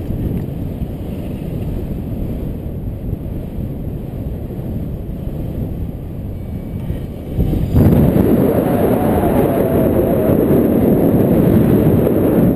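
Airflow buffeting a pole-mounted camera's microphone on a tandem paraglider in flight: a steady low rush that grows markedly louder a little past halfway through.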